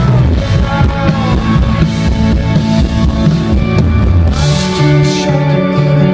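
A rock band playing live, with drum kit, guitars and bass. About four and a half seconds in there is a cymbal crash, and after it the bass settles into a steady repeating pattern.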